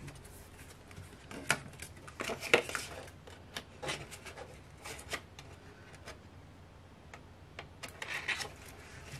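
Paper and card being handled: scattered rustles and light taps as a stack of stiff paper inserts and a small photo booklet are picked up and the booklet's pages are bent and leafed through, with the sharpest taps about two and a half seconds in.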